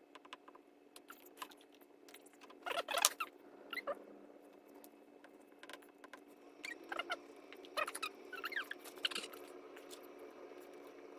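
Paper templates being glued and pressed down onto wood stock by hand: faint scratching, rubbing and small squeaks, loudest about three seconds in, over a steady low hum.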